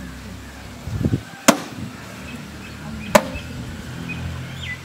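Ball of maida dough being kneaded by hand and slapped down onto a plate: two sharp slaps about a second and a half apart, with a duller knock just before the first. Faint bird chirps near the end.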